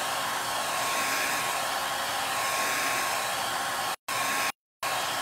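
Handheld hair dryer blowing steadily over a chalkboard sign to dry freshly applied chalk paste, with a thin steady whine in its rush of air. The sound cuts out to silence for brief moments about four seconds in.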